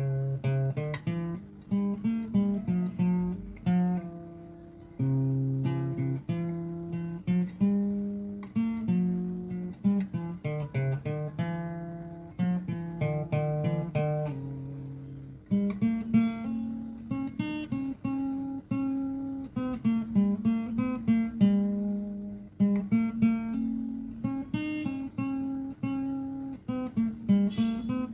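Background instrumental music: a plucked guitar melody, each note starting sharply and fading.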